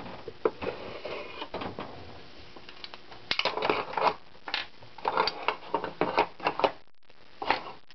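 Irregular clicks and clatter of metal parts as a lawnmower engine's crankcase cover is pulled off and handled, busiest in the second half.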